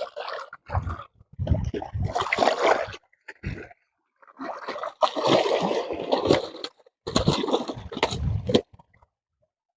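Water splashing in irregular bursts as a hooked catla fish thrashes at the surface.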